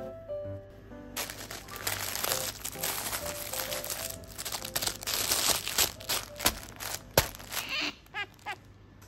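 Crinkling and rustling of a plush toy pot as hands squeeze and rummage inside it, with a few sharp taps about six to seven seconds in.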